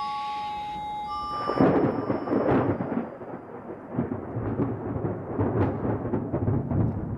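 A few held music notes, then about a second and a half in a thunderstorm breaks with loud rolling thunder and irregular cracks.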